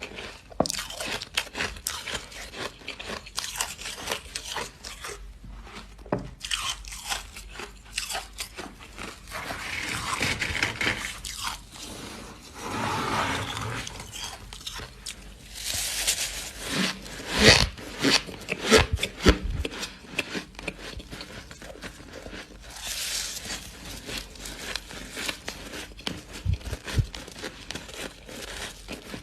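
Close-miked biting and chewing of freezer frost: a long run of crisp, squeaky crunches with a few louder bites in the middle.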